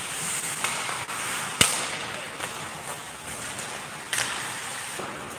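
Ice hockey play in a rink: sharp clacks of stick and puck, the loudest about a second and a half in and another around four seconds in, with a few lighter ticks, over the steady hiss of skates and the echoing rink.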